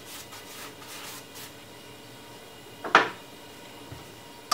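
Pastry brush swept over a roti in a frying pan, spreading oil and melted butter in quick, soft strokes about three a second; the strokes stop about a second and a half in. A single sharp knock about three seconds in is the loudest sound.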